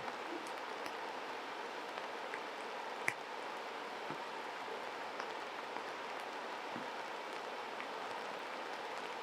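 Steady rush of running stream water, with a few faint ticks and one sharper click about three seconds in.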